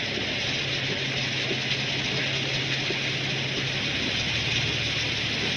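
Steady rain falling on a car, a constant hiss, with the car's engine running underneath as a low, steady hum.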